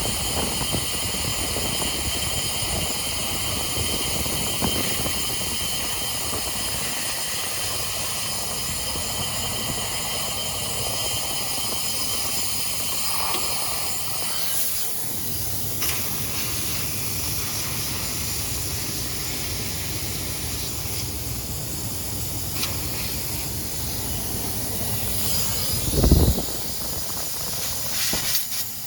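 Steady hiss of pressurised nitrogen pushing flush solvent and debris out through the lines of a contaminated air-conditioning system during a flush, with one brief low thump near the end.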